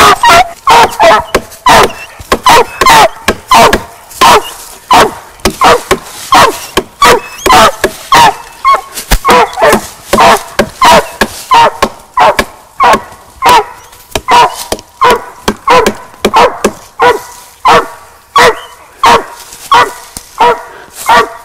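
Squirrel dog barking treed at the base of a tree, a steady, rapid run of barks about two a second.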